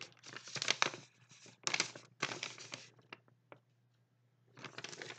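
Paper rustling and crinkling as a folded warranty leaflet is handled and unfolded, in several bursts with a couple of light taps, a short pause, then more rustling near the end.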